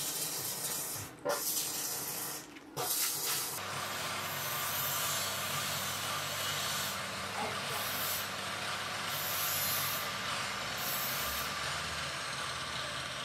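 Steady hissing background noise, broken by a few abrupt brief dropouts in the first few seconds.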